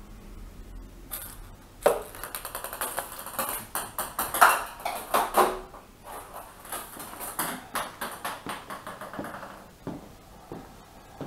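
Ping pong ball bouncing and skittering across a ceramic tile floor as kittens bat it: a rapid run of light clicks that starts about two seconds in and thins out after about six seconds.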